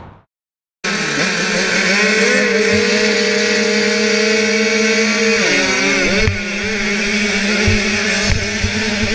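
Two-stroke 85cc motocross bikes held at high revs behind the starting gate, starting abruptly under a second in, heard from a helmet camera. About halfway through the engine note dips and climbs again as the gate drops and the bike launches, followed by wind noise and low knocks from the bike over the rough dirt.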